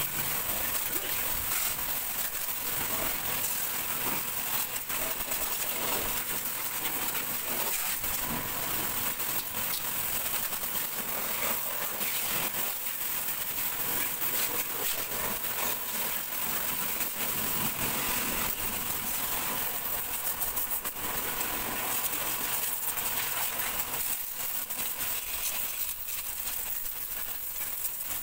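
Pressure washer spraying water over a car's engine bay: a steady hiss of the water jet hitting the engine parts, easing slightly near the end.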